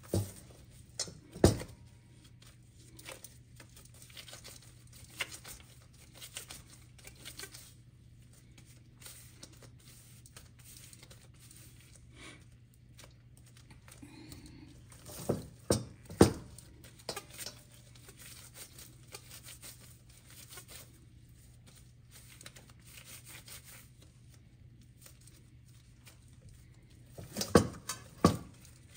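Soft bread dough being pulled apart and worked by hand in black disposable gloves in a metal mixing bowl, with faint soft sounds throughout. A few sharp knocks stand out: one about a second and a half in, two in the middle and two near the end.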